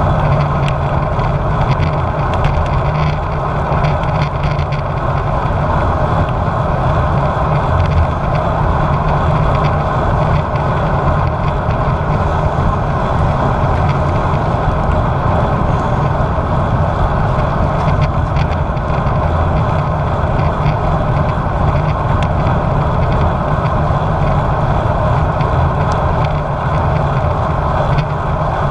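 Wind rushing over a bike-mounted action camera's microphone while a road bike is ridden, mixed with tyre and road noise: a loud, steady rush with most of its weight at the low end and no breaks.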